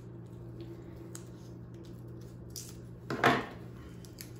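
Scissors being handled over a wooden tabletop while cutting artificial flower stems: a faint click about a second in, then one loud, short clack about three seconds in.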